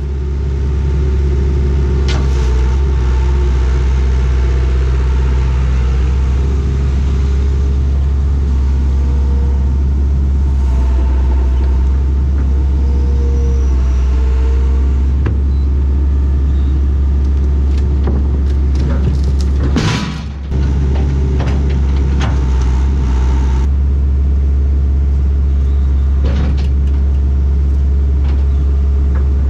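Hitachi hydraulic excavator's diesel engine running steadily as it lifts and stacks logs onto a trailer, with a few knocks from the logs being handled and a brief dip in the engine sound about two-thirds of the way in.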